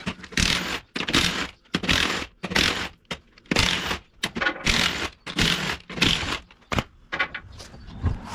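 Rhythmic hand-tool strokes on the second fuel filter of a Cummins diesel: sharp, clicking, scraping strokes, roughly one every two-thirds of a second for about six seconds, then a few weaker ones near the end.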